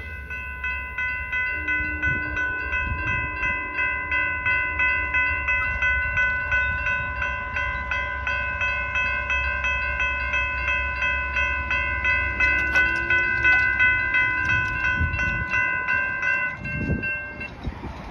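Railroad crossing warning bell ringing rapidly and evenly as the crossing signals flash, then stopping near the end. A low rumble runs underneath.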